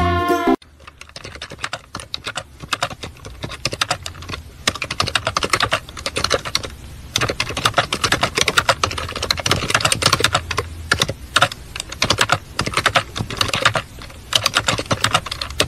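Fast, continuous clatter of computer keyboard keys being typed, starting about half a second in.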